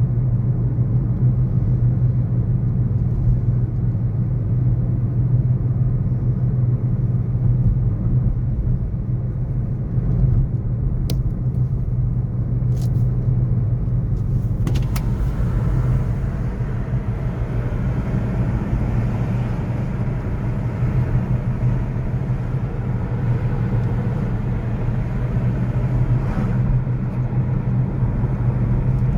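City street traffic: a steady low rumble of passing cars. A few short, sharp clicks come a little before the middle, after which the traffic takes on more hiss.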